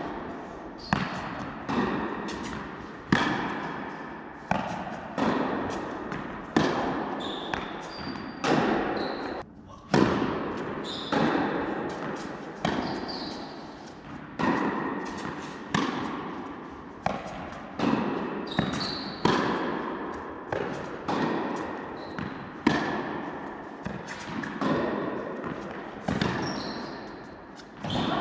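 Tennis balls struck by rackets and bouncing on an indoor court: sharp hits about once a second, each ringing on in the echo of a large hall, with short high squeaks in between.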